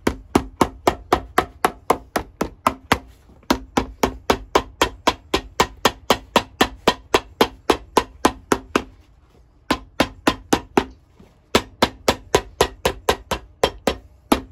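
Cobbler's hammer beating a leather midsole down onto a shoe, fast even blows at about four a second, stopping briefly twice near the middle. A faint ring hangs under the blows.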